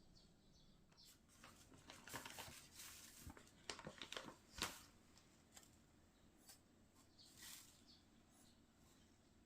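Faint handling sounds of food preparation: scattered rustling with light clicks and taps, and one sharper knock about four and a half seconds in.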